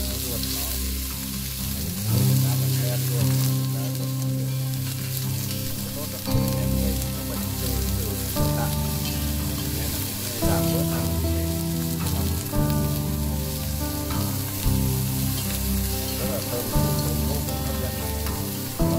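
Chicken gizzards and onion sizzling as they stir-fry in a stainless steel pot, a steady hiss. Background music with held notes changing about every two seconds plays underneath.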